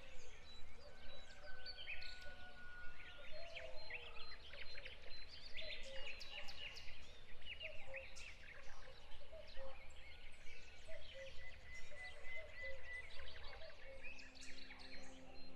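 Many birds chirping and calling at once, a dense run of short quick chirps with a few held whistled notes, over a steady low rumble. Soft music fades in near the end.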